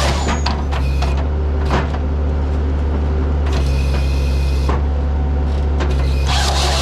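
Skid steer's diesel engine running steadily while driving a hydraulic firewood processor, with scattered knocks and clanks from the processor's mechanism. A loud high hiss from the machine stops just after the start, comes back for about a second in the middle, and returns near the end.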